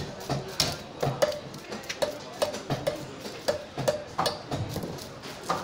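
Sea bass being cut and knocked against a boti, the fixed curved fish-cutting blade: a quick, irregular run of sharp knocks, about two or three a second, many with a short ringing tone after the hit.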